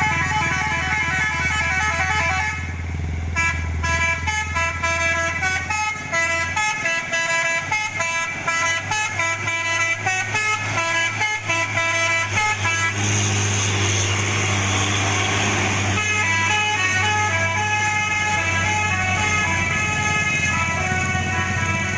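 A Fuso dump truck's modified multi-trumpet musical air horn (telolet-style klakson) playing a melody of stepped tones, over a low steady hum. A rush of hiss-like noise lasts about three seconds midway.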